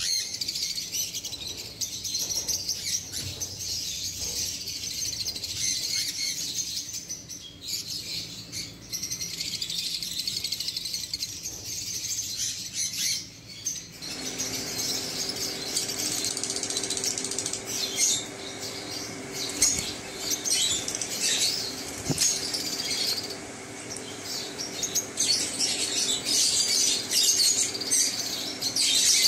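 A colony of Fischer's lovebirds chattering together: a dense, continuous mix of shrill chirps and squeaks. About halfway through, a low steady hum joins in underneath.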